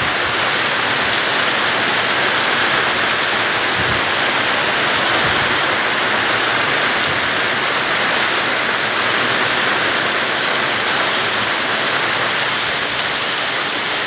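Heavy rain falling steadily on a hut's corrugated roof and the ground around it, a dense unbroken hiss of rain.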